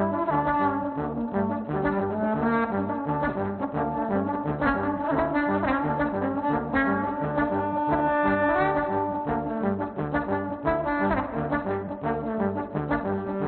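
Trombone playing a melodic line over layered, looped trombone parts and a repeating low bass pulse about twice a second, with several sweeping slide glissandi.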